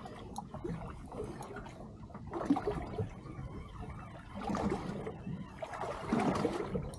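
Water sloshing and trickling against a small boat's hull at sea, coming in irregular bursts.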